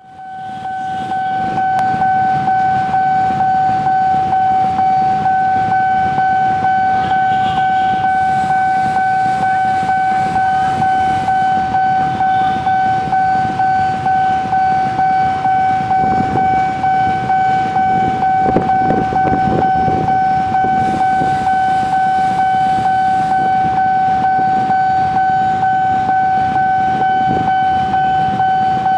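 Railway level crossing warning alarm sounding one steady high tone without a break, over a low rumble.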